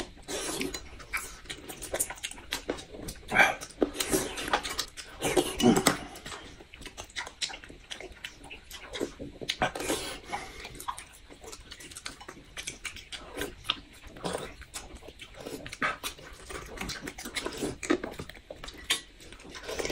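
Two people eating eggs in broth with spoons: repeated wet slurps and smacking chewing, coming in short irregular bursts, a few of them loud.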